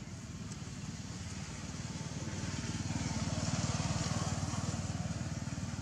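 A motorbike passing by, its engine's rapid low putter growing louder to a peak a little past halfway, then fading.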